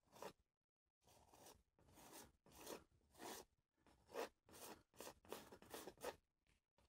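Faint, short scrapes of a metal palette knife pressing oil paint into a canvas, about a dozen strokes that come quicker in the second half.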